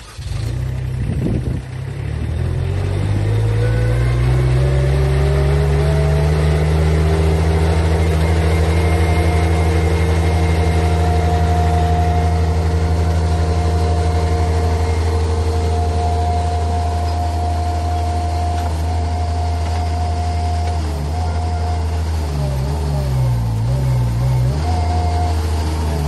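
Engine of a tracked stand-on mini skid steer loader comes up to speed in the first few seconds, then runs steadily. In the last few seconds its pitch wavers up and down as the hydraulics take load from the backhoe attachment digging.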